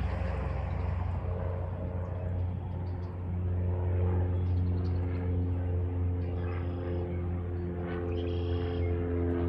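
Steady engine drone: a strong low hum with several higher tones that come in after about a second and shift slightly in pitch.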